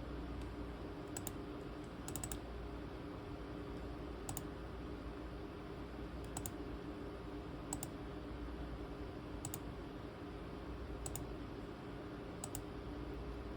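Scattered clicks of computer pointer buttons, about one every second or two with one quick double click, as the computer is operated. A steady low hum runs underneath.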